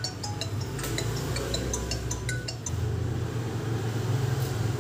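Redmi 6A phone loudspeaker playing a ringtone preview: quick, bright, chime-like notes that stop about halfway through. A steady low hum runs underneath and gets louder as the notes stop.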